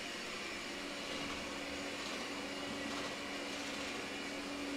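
Steady whir of a running machine with a constant hum note, even in level throughout.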